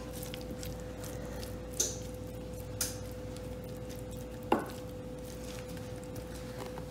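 Wooden spoon spreading a cooked chicken, onion and red pepper mixture in a glass casserole dish: faint soft scrapes and light taps, with one sharper knock about four and a half seconds in, over a steady faint hum.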